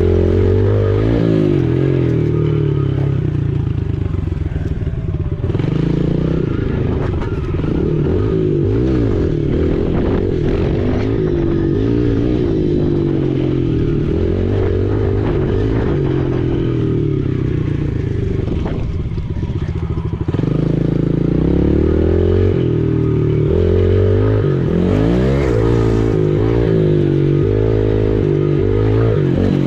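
Pit bike engine running under way, its pitch rising and falling over and over as the throttle is opened and closed, with a brief easing-off a little past halfway before it picks up again.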